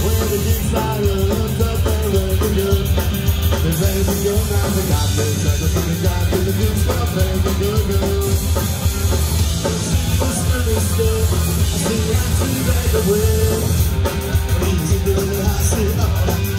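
Punk rock band playing live: a singer's lead vocal over electric guitar and drum kit, loud and dense throughout.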